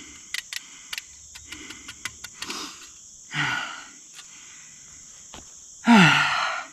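A man breathing hard after exertion on a bow-less hand drill, with two heavy exhalations: one about three seconds in and a louder, voiced sigh that falls in pitch near the end. A series of light clicks sounds in the first couple of seconds.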